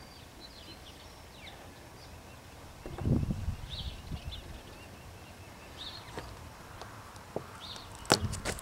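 Handling noise from working a tire plug insertion tool into the tread: a low bump about three seconds in and a few sharp clicks near the end. Small birds chirp now and then.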